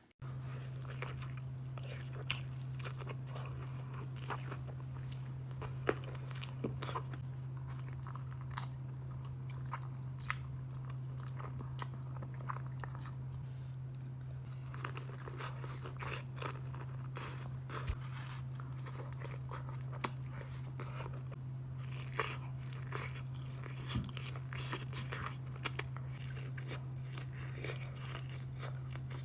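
Close-miked crunching and chewing: a person biting into and eating crunchy food in many short crackles, over a steady low hum.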